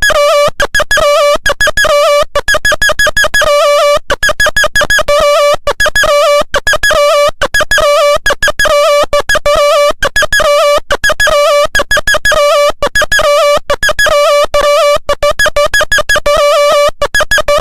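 Synthesized phone ringtone melody: a loud, quick run of short electronic notes, the same phrase repeating over and over.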